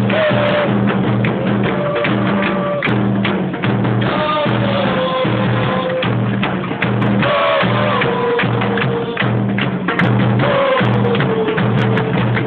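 Supporters' drums in the stands beating a steady, driving rhythm, with a crowd of fans chanting along over them.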